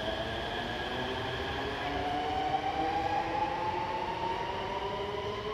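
Electric Namo Bharat rapid-rail train running, its traction motors giving a whine of several tones that rises slowly in pitch as the train picks up speed, over a steady rumble.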